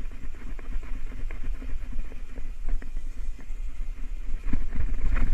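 Low rumbling wind buffeting a camera microphone, with scattered small clicks and rustles from handling the fishing rod and reel, and a few louder knocks near the end.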